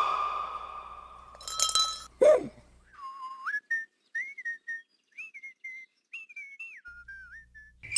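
A ringing tone fades out, then comes a brief bright clinking flourish and a quick falling whistle glide. For the second half, a high whistle plays a wandering run of short notes that slide up and down in pitch.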